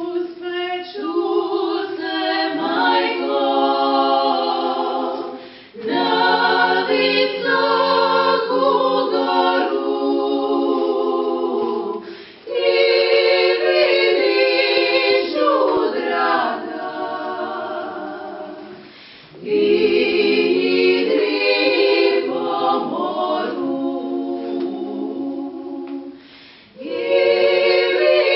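Women's klapa, a Dalmatian a cappella vocal group, singing in close harmony without accompaniment. Long held phrases, each ending in a brief breath pause about every six to seven seconds.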